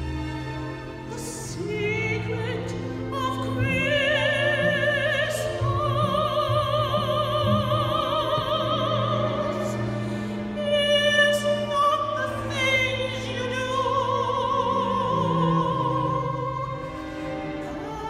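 Soprano singing with a wide vibrato over a small orchestra with bowed strings. She holds two long notes, the first from about four seconds in and the second near the end.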